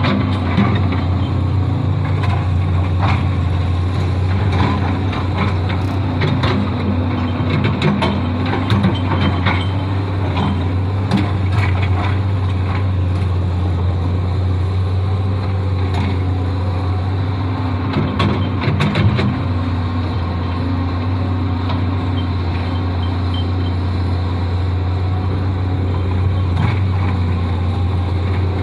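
Excavator's diesel engine running steadily, with scattered sharp metallic knocks and clanks from the working machine.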